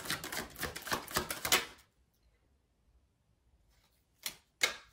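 A deck of tarot cards being shuffled by hand: a fast run of soft clicks lasting under two seconds, then two short flicks of cards near the end.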